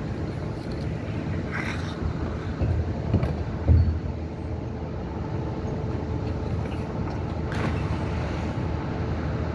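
A steady low rumble, with a few dull thumps about three to four seconds in.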